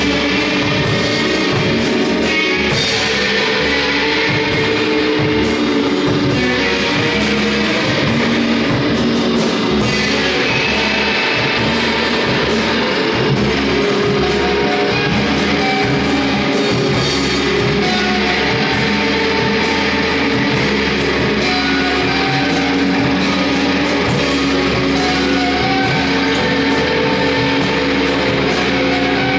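Live noise-rock jam: two electric guitars and a table of electronic effects gear making a dense, loud, steady wall of sustained tones and noise, with a drum kit underneath.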